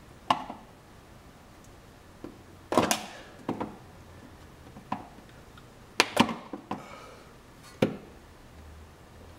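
Two flathead screwdrivers prying at a plastic push-clip in a car's plastic wheel-well liner: irregular sharp clicks and taps of the metal tips against the plastic, with a cluster about three seconds in and another about six seconds in.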